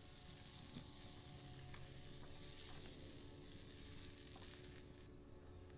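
Faint, steady sizzling of food frying in a pan, with a few light clicks.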